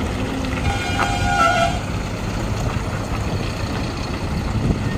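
Heavy diesel truck engines running steadily as loaded lorries climb a hairpin bend on a hill road. A truck horn blows once for about a second, about a second in.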